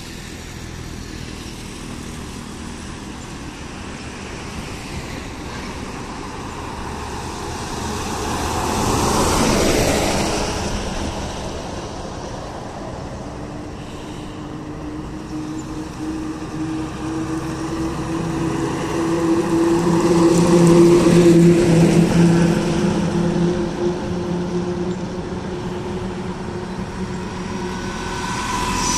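Road traffic passing on a highway. One vehicle passes about a third of the way in, then a heavier vehicle with a steady engine hum builds up and passes about two-thirds in. An auto-rickshaw comes close at the very end.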